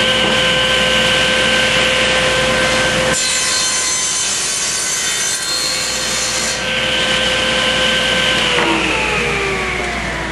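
Table saw running with a steady whine, then cutting a bevel into a board fed through upright in a jig: for about three seconds in the middle the whine gives way to the rough sound of the blade in the wood. About eight and a half seconds in the saw is switched off and winds down, its pitch falling.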